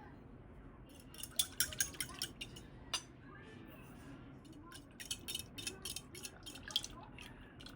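Cutlery and dishes clinking in two flurries of sharp clicks, one about a second in and another from about five seconds in.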